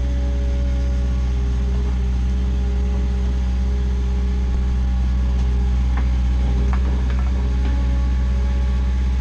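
Bobcat skid steer engine running steadily under work, with a couple of light knocks about six to seven seconds in.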